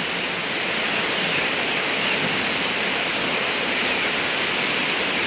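Rain falling steadily, an even hiss with no distinct drops or knocks standing out.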